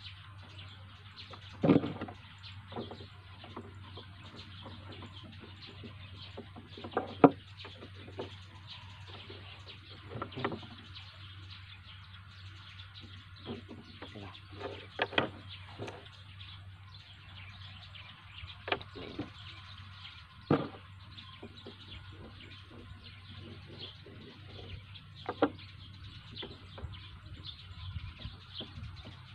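Small plastic trigger parts being handled and set down on a wooden table: a sharp click or tap every few seconds, the loudest about 7 seconds in. Birds chirp in the background throughout, over a low steady hum.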